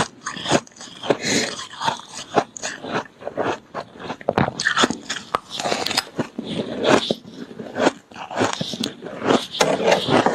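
Mouthfuls of freezer frost being bitten and chewed: rapid, irregular crunching of packed ice crystals.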